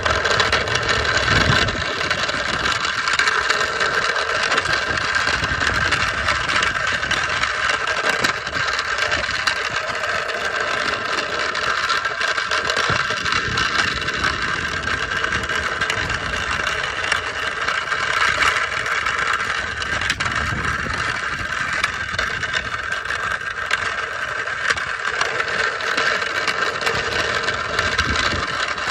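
Hoverboard with a go-kart attachment being ridden: its electric hub motors whine steadily over the noise of the small wheels rolling on asphalt.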